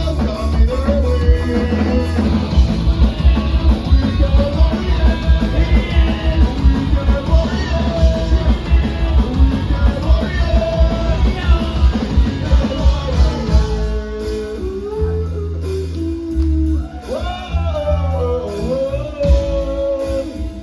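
Punk band playing live: drums, guitars and bass with a sung vocal. About two-thirds of the way through the band thins out and the vocal line stands out more plainly.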